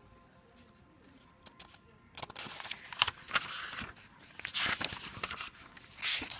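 Paper pages of a paperback book turned by hand, rustling in a string of short bursts starting about two seconds in, after a couple of faint clicks.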